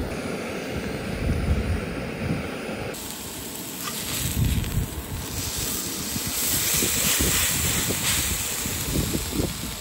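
Canister camp stove's gas burner hissing while wind buffets the microphone in gusty low rumbles. About three seconds in, the sound changes to a steak sizzling on a hot griddle, a loud, steady sizzle that lasts to the end.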